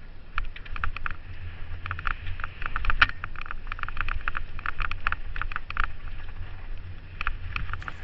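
Mountain bike descending a rough dirt trail, heard from a helmet-mounted camera: a steady low wind rumble on the microphone, with irregular clicks and clatter as the bike and camera jolt over the ground.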